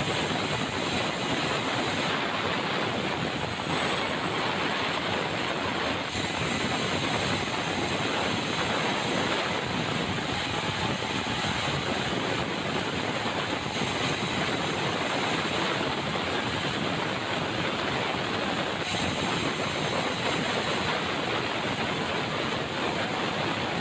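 Sawmill machinery running with a steady mechanical noise and hiss. The high hiss shifts a little every few seconds.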